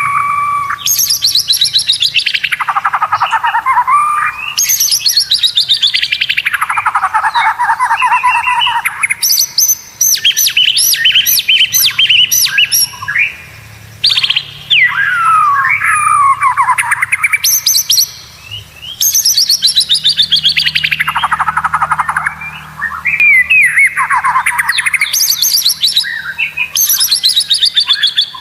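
White-rumped shama (murai batu) singing in loud bursts of fast, rattling trills that sweep down in pitch, each phrase a couple of seconds long and repeated after short pauses.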